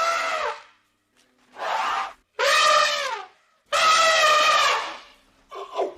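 An animal calling repeatedly: about five loud, drawn-out cries, each under a second long, some dropping in pitch at the end.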